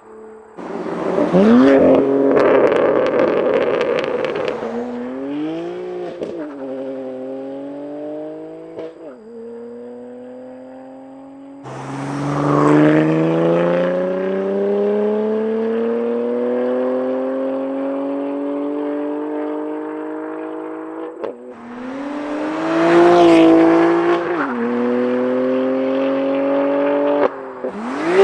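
BMW M2 Competition's S55 twin-turbo inline-six, through an equal-length valved exhaust, accelerating hard past in several pulls. The engine note climbs steadily with the revs, falls sharply at the gear changes about a third and three quarters of the way through, and surges loudest near the start and again near the end.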